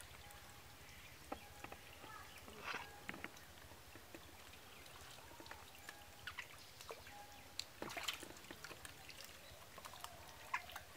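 Water splashing and sloshing as live fish are scooped out of a net with plastic scoops and tipped into a plastic basin, in scattered short splashes and knocks; the biggest splash comes about eight seconds in.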